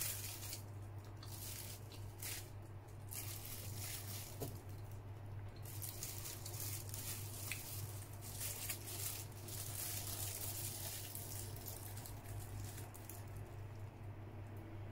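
Close-up chewing and wet mouth sounds of a soft cream bun being eaten, with irregular crinkles of the thin plastic bag wrapped around the bun. A steady low hum sits underneath.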